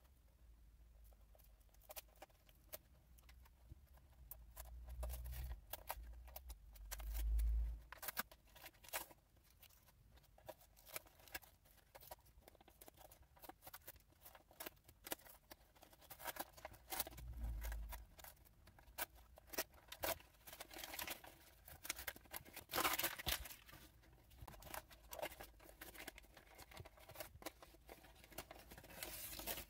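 Close-up hands-on handling of small parts: a run of light clicks, scrapes and crinkling or tearing sounds, busier in the second half, with a couple of low bumps early on and about two-thirds through.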